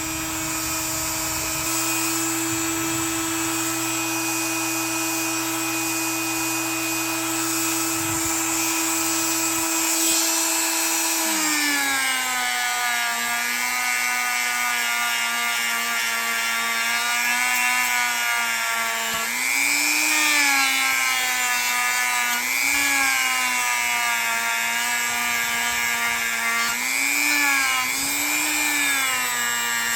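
Small electric power tool spinning a polishing pad with compound against a pocketknife's blades, giving a steady motor whine. Its pitch drops a little about eleven seconds in, then sags and recovers several times as the pad is pressed onto the blade.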